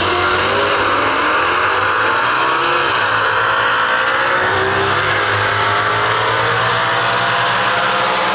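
Two nostalgia super stock drag cars, 1960s American sedans with V8 engines, launching together and accelerating hard down the drag strip at full throttle. The engine pitch climbs, drops back about three seconds in and again about five seconds in as they shift gears, then keeps climbing.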